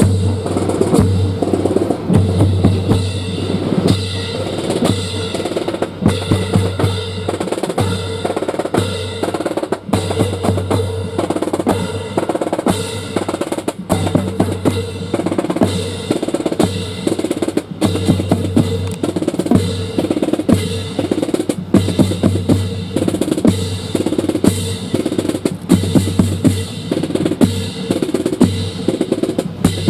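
Drum-led music with bass drum and snare beating a steady, repeating marching rhythm.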